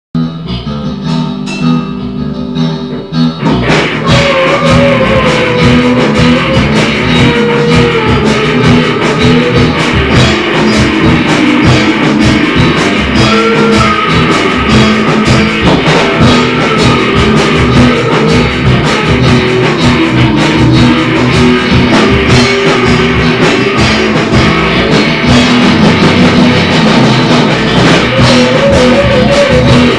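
Surf-punk rock instrumental: an electric guitar lead over bass and a drum kit. A thinner opening gives way to the full band about three and a half seconds in.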